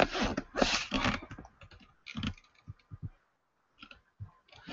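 Irregular tapping and clicking of a computer keyboard and mouse. There is a dense run of taps in the first second, then scattered single clicks.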